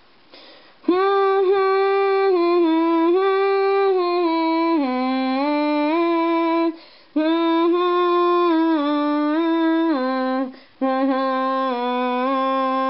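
A person humming a tune in three long phrases, starting about a second in, with held notes stepping up and down in pitch and short pauses between the phrases.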